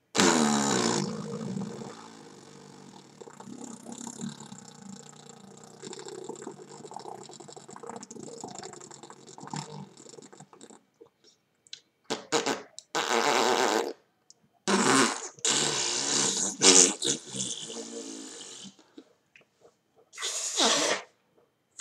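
A person making imitation fart sounds. The first is one long, drawn-out sound that starts loud and trails off over about ten seconds; in the second half come several shorter, louder blasts.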